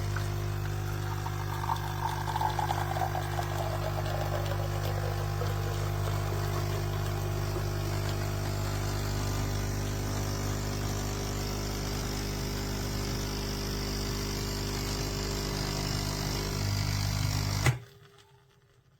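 The vibration pump of a NESCAFÉ Dolce Gusto Piccolo XS pod coffee machine running with a steady buzzing hum while it pumps water through a pod, cutting off suddenly with a click near the end.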